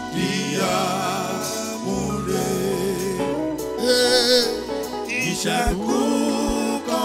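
Live gospel music: a man singing with vibrato into a microphone over electronic keyboard accompaniment.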